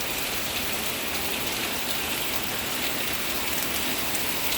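Heavy tropical rain falling steadily, a dense even hiss with scattered drops pattering on surfaces.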